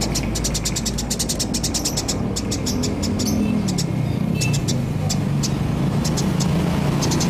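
Eurasian tree sparrows chirping: quick runs of short, high chirps, thinning out in the middle and picking up again near the end. A steady low engine or traffic hum runs underneath.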